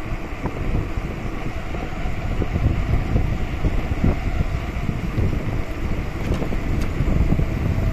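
Wind buffeting the microphone of a cyclist riding along, an uneven low rumble.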